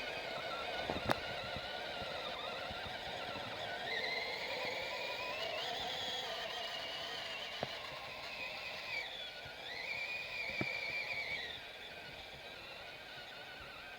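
Electric motor and gearbox of a 6x6 RC scale truck whining as it drives, the pitch rising and falling with the throttle, with a few sharp clicks. The whine drops off near the end.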